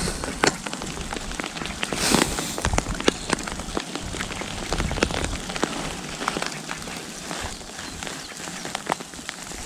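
Rain falling, with many sharp, irregular drop ticks close by over a steady hiss, and low wind rumble on the microphone. A brief rustle comes about two seconds in.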